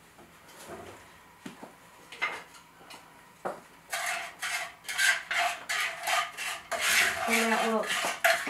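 Wooden spatula stirring and scraping chopped almonds in sugar and water in a frying pan, in quick repeated scrapes and clatters that start about halfway through, after a few faint clicks. The almonds are being candied in the sugar syrup.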